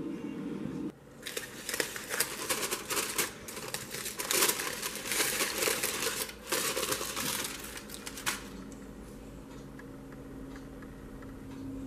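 Aluminium foil crinkling and rustling as it is peeled off the top of a pot. It starts about a second in and stops near the eight-second mark.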